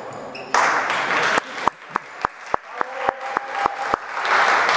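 Audience applause for the award that breaks into about ten sharp, even claps in time, roughly three and a half a second, then swells back into general applause near the end.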